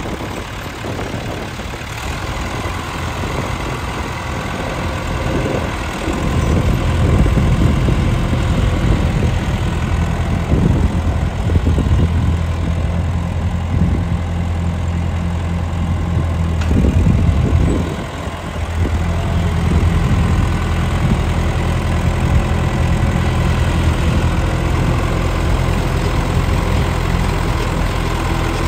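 John Deere 3010 tractor engine running steadily as the tractor is driven slowly about. It grows louder about six seconds in and eases briefly near eighteen seconds before picking up again.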